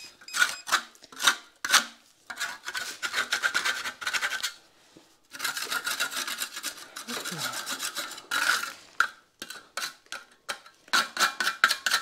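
A metal trowel scraping tile adhesive in repeated rasping strokes, scraping up the last of the adhesive. A few short single strokes come first, then longer runs of quick strokes.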